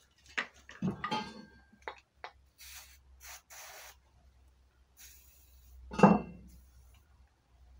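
A WD-40 aerosol can spraying in short hissing bursts, three quick ones a little under three seconds in and another about five seconds in, soaking a stuck exhaust part with penetrating oil. A few light metal clinks come before the spraying, and a loud knock follows about six seconds in.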